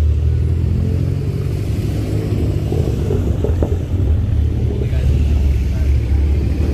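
A car's engine and exhaust rumbling low and steady.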